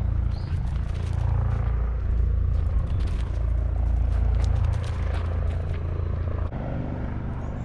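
Low steady rumble with scattered light scrapes and rustles; the rumble drops off about six and a half seconds in.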